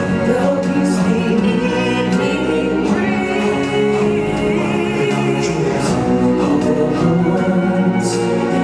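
Music with a choir of voices singing together.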